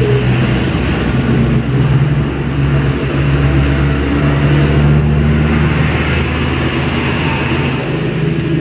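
A steady low motor hum, loud and unbroken.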